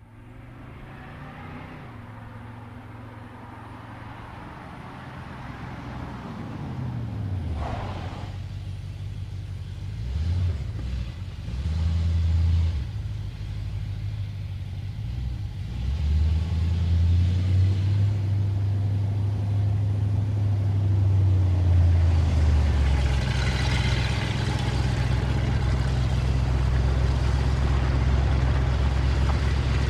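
Ford Mustang engine running and revving, its pitch swelling and dropping several times and its level building up over the half-minute.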